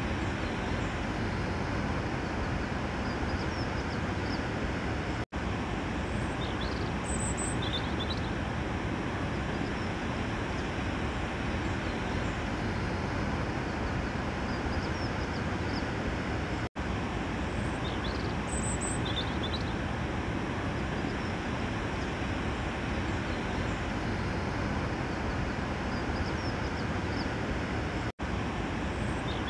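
A looped outdoor ambience track: a steady rushing noise with a few short, high bird chirps. The loop repeats about every 11 seconds, with a split-second dropout to silence at each restart, twice in the middle and once near the end.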